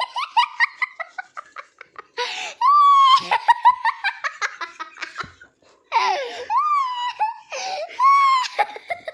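Baby laughing: bouts of high-pitched giggles and squealing laughs, with sharp breathy gasps between them.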